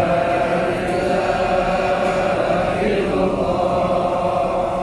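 A congregation of many voices chanting Islamic devotional verses together in unison, with long held notes at a steady level.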